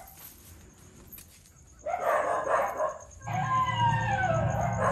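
A short rough noise about two seconds in, then a falling howl over a low steady drone, a werewolf howl sound effect played from a hidden loudspeaker.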